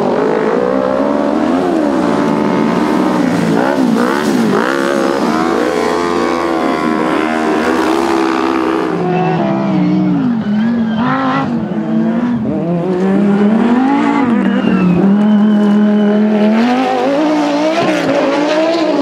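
Autocross racing cars on a dirt track, their engines revving hard, the pitch climbing and dropping again and again with throttle and gear changes, more than one car heard one after another.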